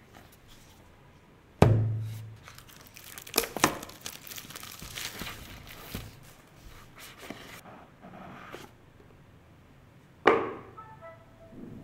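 A sharp thunk about a second and a half in, then several seconds of crinkling and tearing as the plastic shrink-wrap is pulled off a smartphone box. Another thunk comes near the end, followed by a brief run of short tones stepping downward.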